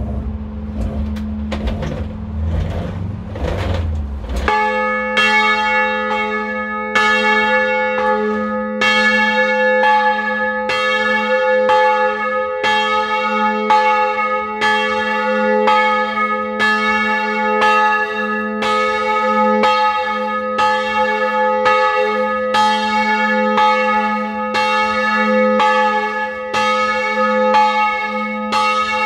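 A bronze church bell with strike note A-flat, cast in 2006 by Perner of Passau, being rung. At first only its low hum sounds over a low rumble. About four and a half seconds in, the clapper starts striking, roughly once a second, each stroke ringing on into the next.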